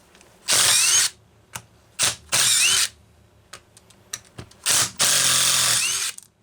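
Handheld power driver run in short bursts, three main runs with the last about a second long, its motor whine rising as each run starts, with small clicks between. It is backing out fasteners from the drivecase of a Homelite Super XL chainsaw.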